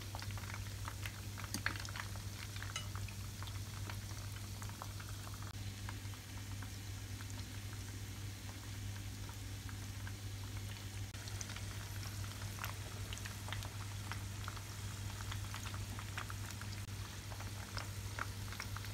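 Hot oil in a deep-fryer pot bubbling steadily, with many small scattered crackles and pops, over a steady low hum.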